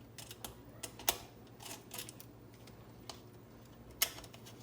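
Light clicks and taps of plastic parts from an opened Keurig coffee maker being handled and worked loose, with a sharper click about a second in and another near the end, over a faint low hum.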